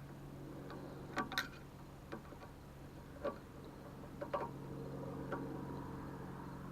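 Light, irregular clicks and taps of tools and small parts being handled while a kill switch is fitted, with about eight sharp clicks scattered through it over a steady low hum.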